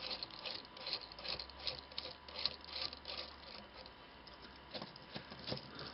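Faint, irregular small clicks and rustles of fingers handling and fitting a printed plastic part, metal washers and nuts onto a threaded steel rod. The clicks thin out after about three and a half seconds.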